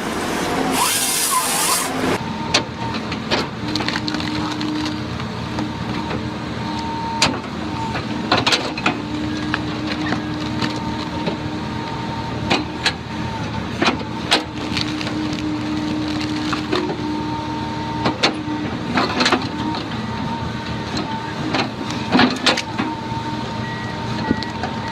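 Heavy machinery running steadily, with a hum that comes and goes and many short clicks and knocks. A short hiss sounds about a second in.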